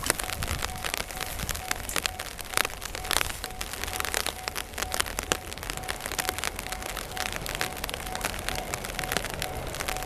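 Rain falling as a dense, irregular spatter of small drops, with a faint tone repeating throughout and a steady low rumble underneath.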